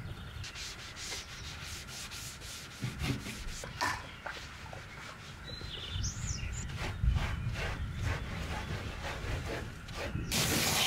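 Repeated scrubbing strokes against the inside walls of a chest freezer as it is washed out. A bird chirps briefly around the middle, and a garden hose starts spraying near the end.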